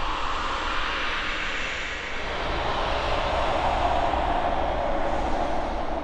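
Blizzard wind sound effect: a steady howling rush whose pitch drifts lower after about two seconds.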